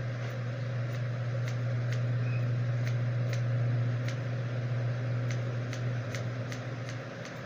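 Grooming scissors snipping the hair on a dog's head: about a dozen short, sharp snips at an uneven pace. Under them runs a steady low machine hum that stops about six seconds in.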